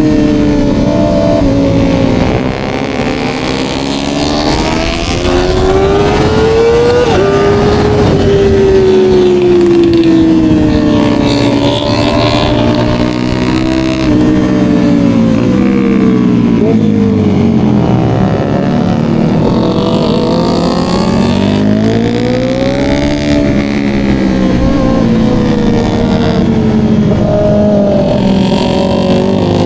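Kawasaki ZX-25R SE's 250 cc inline-four with an Austin Racing exhaust, running at high revs. Its pitch rises and falls several times as the bike accelerates and eases off.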